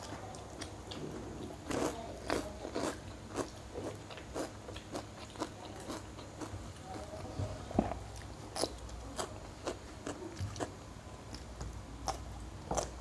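Close-miked eating: people biting and chewing crunchy food, a run of sharp, irregular crunches with softer mouth and chewing sounds between.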